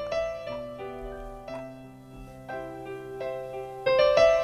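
Piano sound from a stage keyboard played live: slow held chords that change about once a second, getting louder near the end, as the opening of a ballad.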